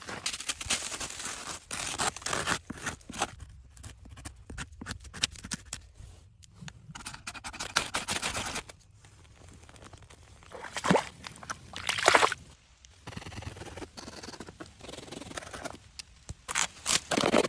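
Irregular scraping and crunching with many sharp clicks, coming in uneven bursts, with a couple of louder scrapes about two-thirds of the way through and another near the end.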